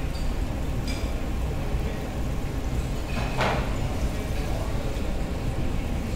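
Jalebi batter sizzling as it fries in a large pan of hot oil, over a steady low hum. A brief, louder crackle comes about three and a half seconds in.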